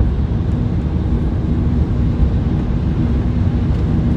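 Steady low rumble of road and engine noise inside a moving car's cabin, with a faint steady hum.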